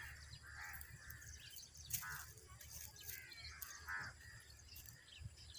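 Faint crows cawing a few times, spaced a second or two apart, with small birds chirping, over a low steady rumble.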